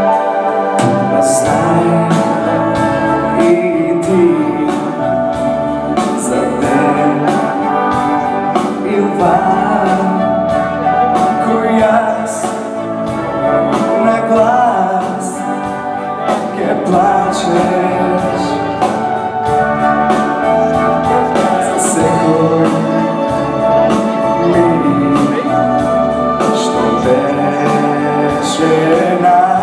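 A male singer singing a pop ballad in Macedonian, backed by an orchestra with brass and a steady drum beat.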